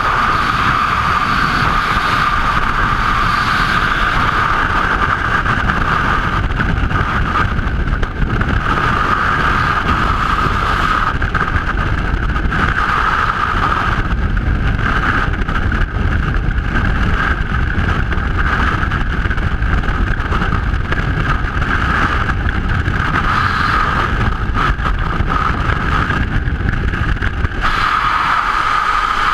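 Freefall wind rushing over a helmet-mounted camera's microphone: loud, steady buffeting with a hissing band above it that thins and returns in places.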